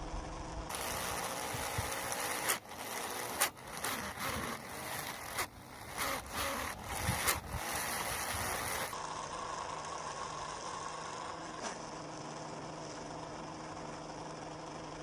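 A small motor running steadily with a hum, with a stretch of irregular clicks and clattering from about a second in until about nine seconds in.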